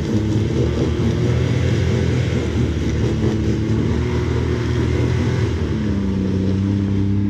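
A side-by-side UTV engine runs hard under throttle as the machine works over rocks. About six seconds in it settles to a steadier note, then drops off at the very end.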